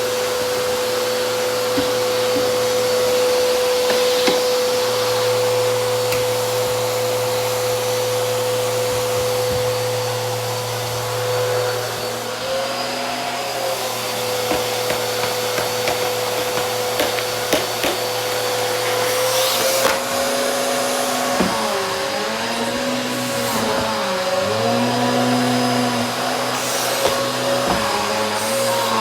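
Vacuum cleaner running steadily, its motor hum dipping in pitch and recovering a few times in the second half.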